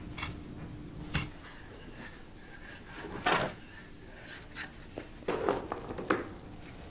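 Hand work with unfired kharmohre clay beads and dry powder: a couple of light clicks of a metal point at the clay, a scoop scraping through powder in a clay bowl a little past three seconds in, then a cluster of scrapes and taps near the end as beads are set into powder in a bowl.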